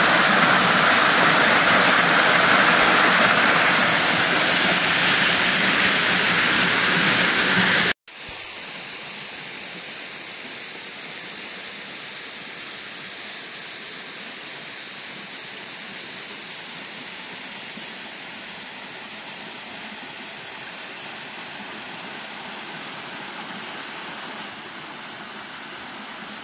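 Waterfall running, a loud steady rush of falling water. About eight seconds in it cuts off abruptly to a much quieter, steady hiss.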